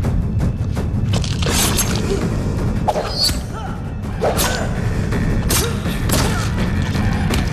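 Action-film fight soundtrack: dramatic music with a heavy, steady low end, cut through by several sharp impact hits and whooshes spread through the scene.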